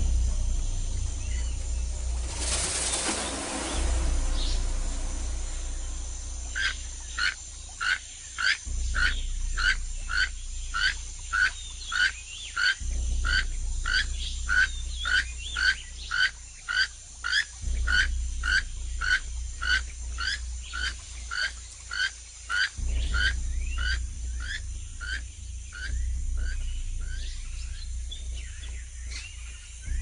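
A frog calling over and over, short rising notes at about two a second, starting about six seconds in and tailing off near the end, over a steady low rumble.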